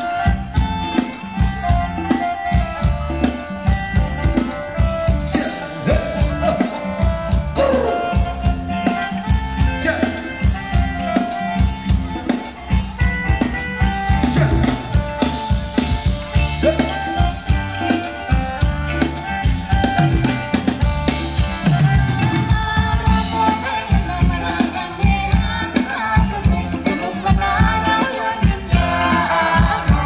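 Live Thai rum wong dance band playing amplified through a PA: a steady drum-kit beat with bass drum under melody instruments, with singing at times.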